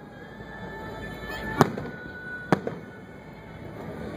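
Fireworks display: aerial shells bursting with two sharp bangs about a second apart, the first about a second and a half in.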